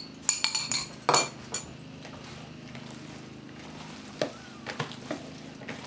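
A quick run of sharp clinks and knocks on a mixing bowl as an egg goes into burger mince. Then quieter hand-mixing of the mince in the bowl, with a few soft knocks over a steady low hum.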